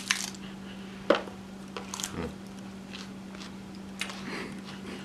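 Kitchen handling noises while a burger is put together: scattered light clicks and taps with one sharp knock about a second in, over a steady low hum.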